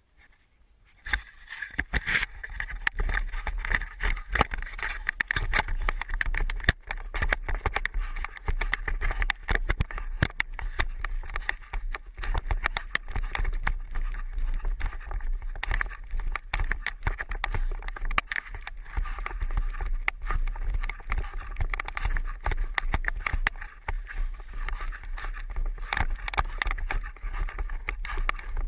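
Handling noise from a camera fixed to a wooden stick carried in a dog's mouth: a continuous low rumble with dense crackling knocks and scrapes as the dog's jaws grip the stick and it jostles, starting about a second in.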